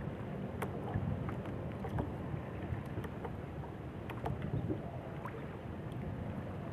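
Steady low rumble of wind and sea water around a small fishing boat, with light scattered clicks and taps.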